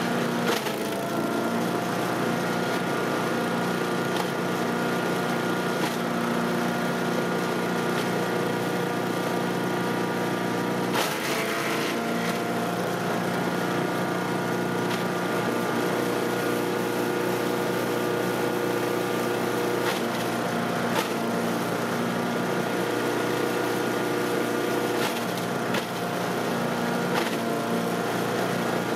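Cub Cadet CS 3310 gas chipper shredder running steadily while chipping yard waste, with sharp cracks as material goes through. The engine dips briefly in pitch under the load a few times, about half a second in, about eleven seconds in and near the end, then recovers.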